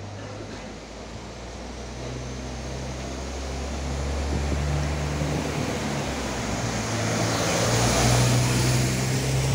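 PESA Link SA139 diesel multiple unit arriving along the platform. Its diesel engine gives a low hum that shifts in pitch now and then, and wheel-on-rail noise grows steadily louder as the railcar comes alongside.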